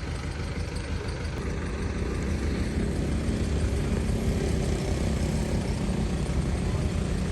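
Mini excavator's diesel engine running steadily, a little louder from about two and a half seconds in.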